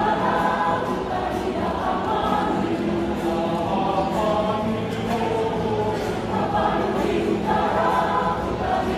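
Mixed choir of men and women singing.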